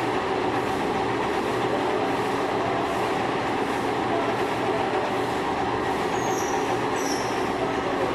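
Machining equipment running steadily with a constant mechanical hum and several steady tones, and a couple of faint high squeaks about six and seven seconds in.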